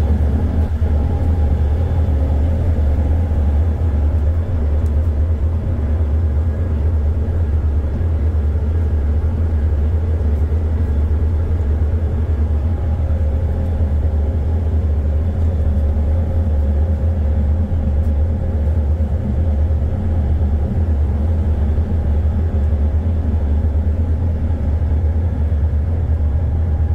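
A ship's engine running steadily while underway: a constant low drone.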